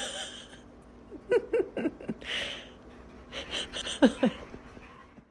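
A dog making short whining sounds, a few brief ones and then two that fall in pitch about four seconds in, with a breathy huff between them.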